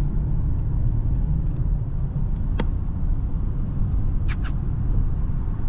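Steady low rumble, with a single sharp click partway through and two quick high ticks a little later.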